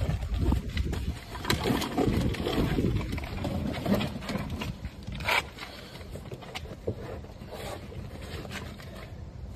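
Rustling, scraping and knocking as plastic-wrapped packages are pulled out of a hidden cavity under a car's floor carpet, over a low rumble; the handling is busiest in the first half and quieter toward the end.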